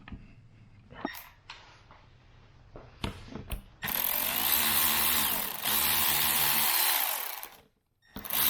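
A few light clicks of handling, then about four seconds in a power drill starts running, backing out a long bolt. It stops near the end and starts again just after.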